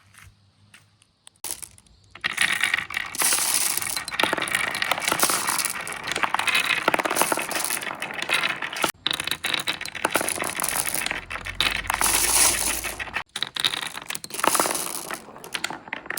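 Glass marbles rolling and clattering down a marble run, a dense, continuous rattle of many small clicks that starts about a second and a half in and breaks off sharply twice.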